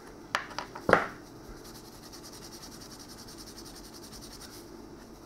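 Two sharp knocks of a tool set down on a wooden board in the first second, then faint, even rubbing as a small soldered brass spoon lure is worked by hand with a pad.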